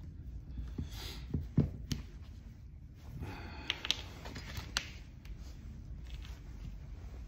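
Hand-stitching leather on a chrome handle: rustling as the thread is drawn through the leather, with a few sharp knocks and clicks as the metal handle and needles touch the workbench, the loudest about a second and a half in.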